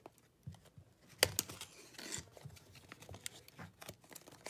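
Small cardboard puzzle box being opened by hand, the inner tray slid out: card scraping and rustling, with scattered sharp clicks, the loudest about a second in.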